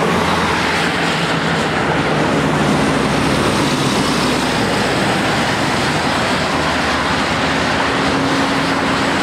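Highway traffic passing close by: a steady, loud rush of tyre and engine noise. Near the end a truck's engine hum stands out as it goes by.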